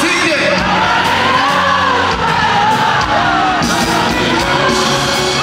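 Live afrobeats concert music: a male singer with the band over the arena PA, heard from among the audience, with crowd voices mixed in.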